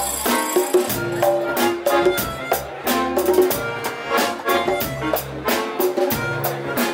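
Live band playing an instrumental passage: drum kit and hand percussion striking frequent beats under sustained notes from a Hohner accordion.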